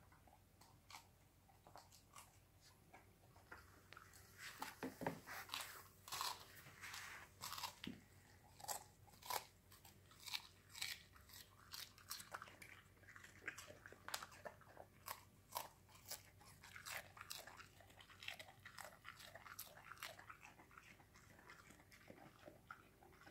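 Irish soft-coated wheaten terrier crunching and chewing crisp lettuce leaves: a quick, irregular run of crisp bites, sparse at first and coming thick and fast from about four seconds in.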